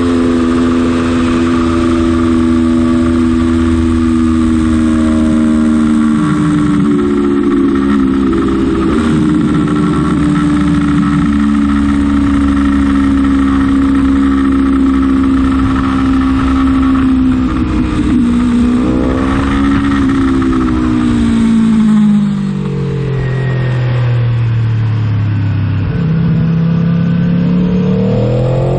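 Aprilia Tuono motorcycle engine at high revs under hard riding, its note held high and steady for a long stretch. About two-thirds of the way in the pitch drops in steps as the bike slows and shifts down, then climbs again as it accelerates near the end.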